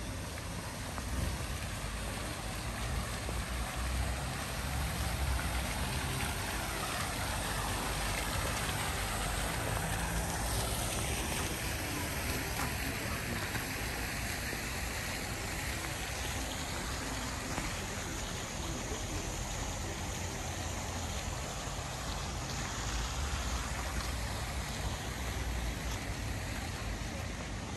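Steady outdoor town ambience, a continuous rushing wash with low rumble, and a falling whoosh about ten seconds in.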